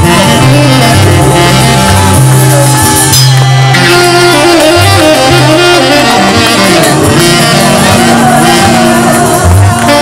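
Tenor saxophone playing a slow, sustained worship melody with gentle bends in pitch, over accompanying music with a bass line that moves every second or so.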